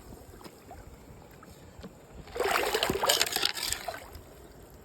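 Creek water splashing in a loud burst lasting about a second and a half, a little past the middle, as hands or feet churn the shallows; otherwise a faint trickle of running water.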